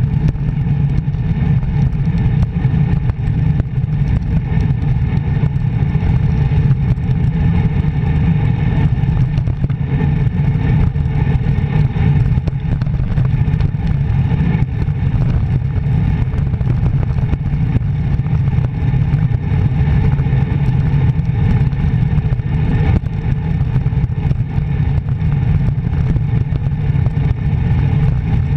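Steady, loud wind buffeting on a handlebar-mounted GoPro as a road bike descends at speed, a deep rushing rumble with no letup.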